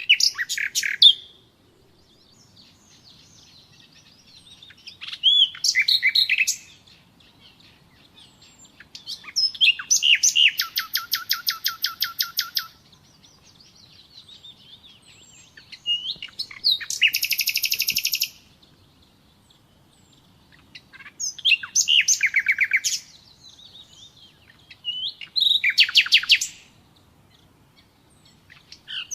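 Common nightingale singing: six phrases separated by pauses of a few seconds, several of them fast runs of rapidly repeated notes, with softer notes in between.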